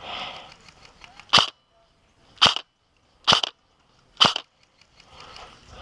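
Airsoft gun firing four single shots, roughly a second apart, each a short sharp crack.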